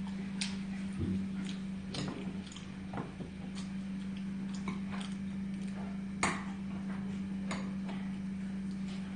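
Metal chopsticks clicking against dishes and bowls at irregular intervals while eating, the loudest click about six seconds in, over a steady low hum.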